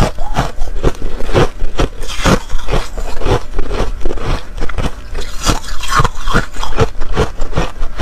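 Close-miked chewing of a mouthful of hard, frosty ice: a quick, irregular run of crunches, about three a second.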